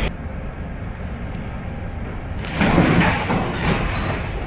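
Storm sea noise heard from a container ship's bridge. About two and a half seconds in, a heavy wave breaks over the bow in a sudden, louder rushing surge of spray that slowly dies away.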